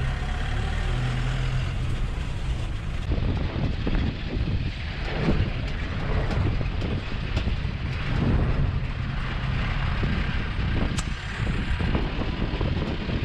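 Engine of an open-top safari canter truck running as it drives along a dirt track. From about three seconds in, the body rattles and bumps unevenly over the rough ground.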